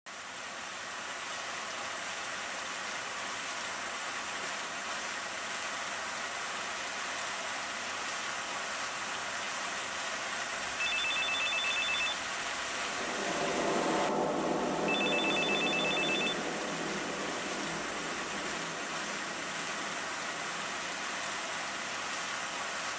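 Steady rushing of water from fountains, with a cell phone's trilling ring heard twice, about a second each, near the middle. A lower, louder rumble joins partway through.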